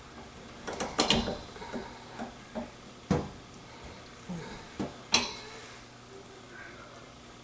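Scattered knocks and clicks of hands handling sausage and sheep casing on a stainless steel counter. The sharpest knocks come about one, three and five seconds in.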